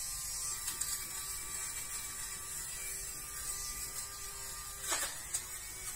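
Dafko handheld electric lint remover running, its small motor humming steadily as it shaves lint off sofa fabric. About five seconds in, a short scrape and the hum dips briefly in pitch.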